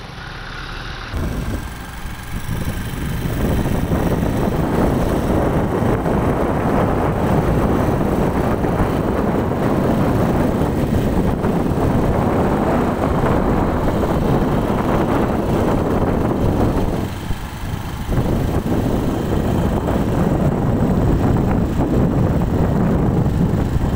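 Wind buffeting the phone's microphone, a loud, gusting rumble that swells over the first few seconds and drops briefly once, near the three-quarter mark.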